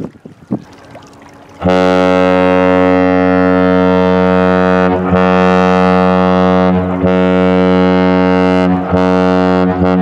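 Great Lakes bulk freighter's air horn sounding one long, very loud blast. It starts about two seconds in and holds, with a few momentary dips. Before the blast there is only light wind noise on the microphone.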